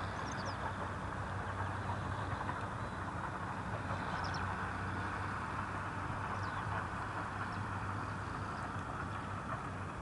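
Steady, distant jet engine noise from an Airbus A320 at low power as it turns on the runway, with a few short bird chirps over it.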